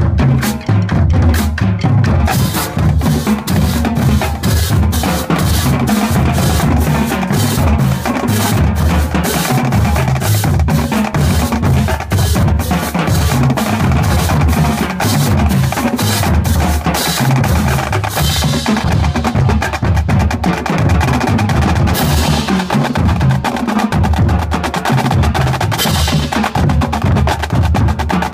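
Drumline playing a fast, loud percussion groove: rapid snare strikes over bass drums hitting notes at several pitches, with a few cymbal-like splashes in the second half.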